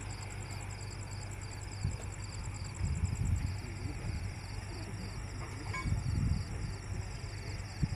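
Crickets chirring in a steady, evenly pulsing high trill over a constant low machine rumble, which swells louder briefly about three seconds in and again about six seconds in. Faint distant voices come through near the middle.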